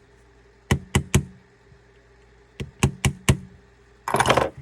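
Sharp metallic taps and clicks on a KWA Masada airsoft rifle's mechanism block during reassembly: three quick taps about a second in, four more in the middle, then a short scraping rattle near the end.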